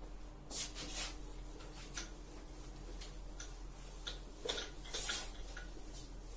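Whiteboard duster rubbing marker writing off a whiteboard in short, quick scrubbing strokes. The strongest strokes come about half a second and a second in, and again around four and a half to five seconds in.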